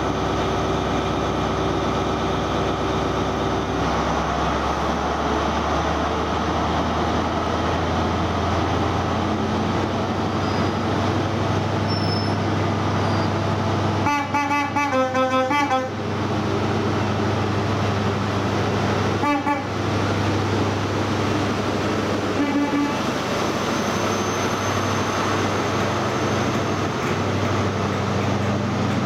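Diesel engine of an InterCity 125 HST power car running steadily, with its horn sounded about halfway through: a loud two-tone blast switching between a high and a low note for about two seconds. A short blast follows a few seconds later, then a fainter short one.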